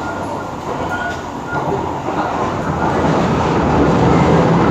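Running noise inside an SMRT KSF151A metro train carriage: wheels on the rails and the train's motors make a steady rumble that grows louder about halfway through.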